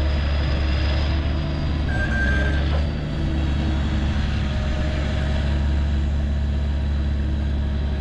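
Log truck's diesel engine running steadily to drive its hydraulic knuckle-boom loader as it lifts logs, with a thin high whine that fades about three seconds in.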